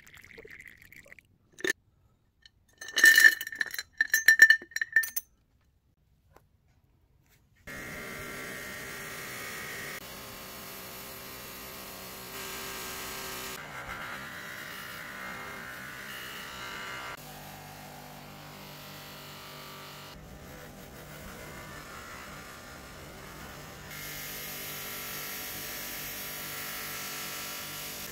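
A short pour of liquid, then glass clinking several times in quick succession. After a brief silence, a bench-mounted cloth buffing wheel runs steadily, its motor humming, while a copper soldering-iron tip and brass fitting are polished against it.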